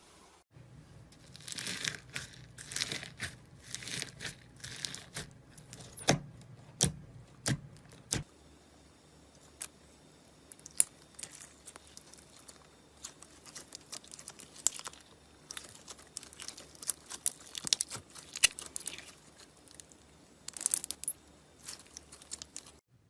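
Slime being mixed and worked: a few longer noisy swells, then a long run of quick, sharp clicks and pops.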